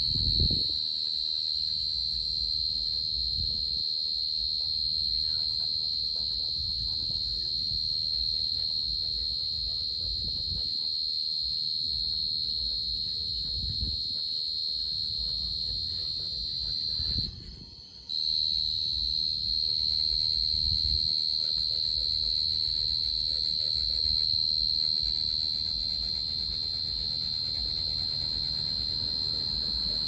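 A cricket singing a steady, high-pitched trill that breaks off for about a second just past the middle, then carries on.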